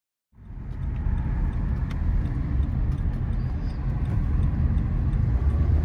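Steady low rumble of a car's engine and road noise inside the moving car's cabin, starting suddenly just after the beginning.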